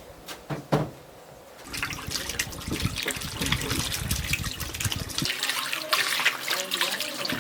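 Water running and splashing, as in washing something in a sink or basin, after a couple of knocks just before a second in.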